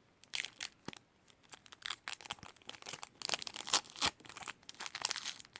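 Foil baseball card pack wrapper crinkling and tearing in fits and starts as it is worked open by hand, with a few sharp crackles.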